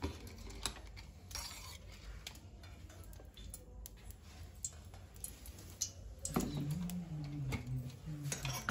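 Cooking oil poured from a bottle into an aluminium pan: faint, scattered clicks and taps of metal over a low steady hum.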